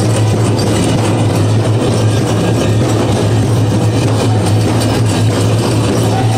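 Powwow drum group playing a chicken dance song, the big drum beaten in a steady driving beat under the singers, loud and unbroken.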